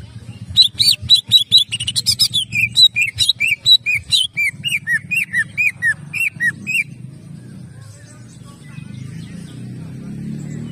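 Greater green leafbird (cucak ijo) singing a fast run of sharp, shot-like notes, about four or five a second; these are the 'tembakan' bursts that bird-keepers prize in a competition bird. The notes start high and step lower partway through, and the song stops about two-thirds of the way in, leaving a low steady background sound.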